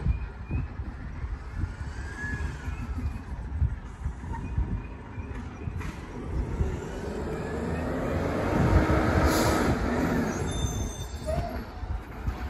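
Garbage truck running, a continuous low rumble that swells louder about eight to ten seconds in, with a few brief squeals.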